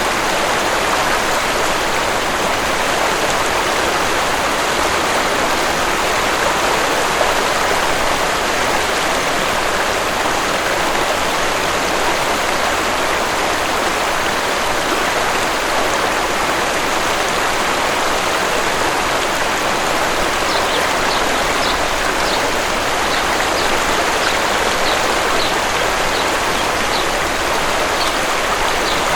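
Waterfall rushing steadily. About two-thirds of the way through, a small bird starts a run of short, high chirps over it.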